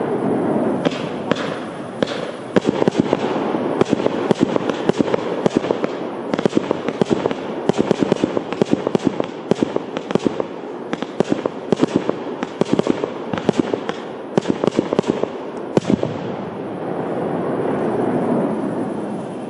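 Fireworks display: a dense, fast crackle of many small sharp reports from about a second in, thinning out about sixteen seconds in to a steadier rush of noise.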